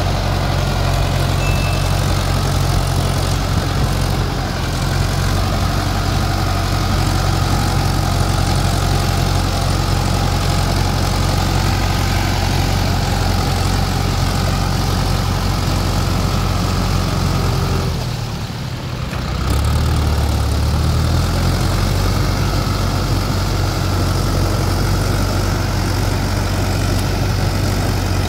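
Diesel engine of a Shaktimaan 614 two-wheel-drive tractor running steadily while it drives a rotavator through wet paddy mud. About two-thirds of the way through, the engine note dips briefly, then picks up again and settles back to its steady run.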